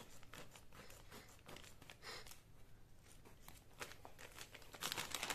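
Scissors snipping through a thin plastic packet, a run of small clicks and a brief swish, then the plastic wrapping crinkling as it is handled, louder near the end.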